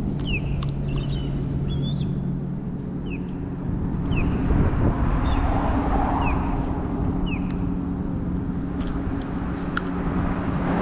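Motor vehicle traffic humming steadily, louder from about four seconds in, with short high chirps from birds repeating about once a second.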